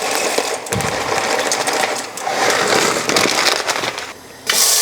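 Rapid clattering and crackling of food being cooked and stirred in a pan. Near the end, after a brief lull, a steady sizzle of frying starts.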